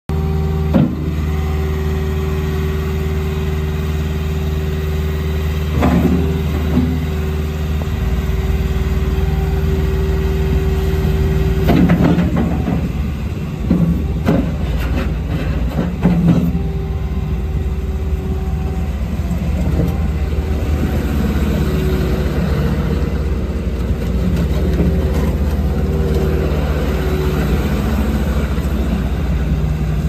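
Volvo MCT125C compact track loader's 74 hp JCB diesel running steadily as the machine drives on its rubber tracks; its low rumble gets heavier about eight seconds in, and a few short knocks come through.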